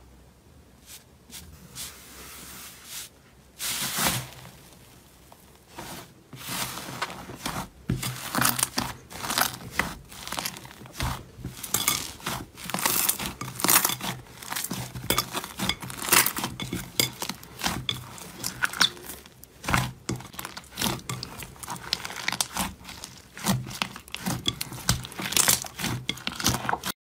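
Hands kneading and pressing a large mass of thick slime: sticky crackling and small pops as it is squeezed and torn. It is sparse for the first few seconds, then runs on densely.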